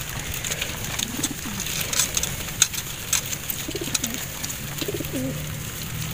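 Racing pigeons cooing in a crowded wire crate: a few short low coos about a second in and again around four and five seconds, over scattered light clicks.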